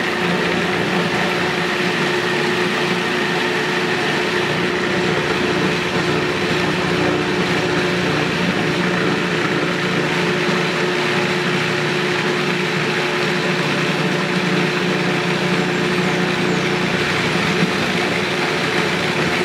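Food processor motor running steadily, its chopper blade grinding fresh strawberries and dates into jam.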